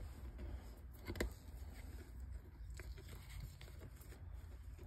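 Faint clicks and taps of a hard cast-resin piece being handled and turned over, with one sharper click about a second in, over a low steady rumble.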